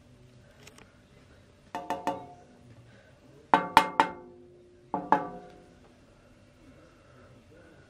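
Finger flicks on the metal blades of a stopped Panasonic FV-40AFU industrial exhaust fan, each strike ringing briefly with a bell-like metallic tone. The strikes come in three quick clusters of two to four.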